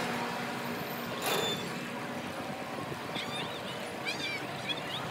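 Outdoor amusement-park background around a kiddie boat ride: a steady wash of noise with a short hiss about a second in, and a run of short, high chirps in the second half.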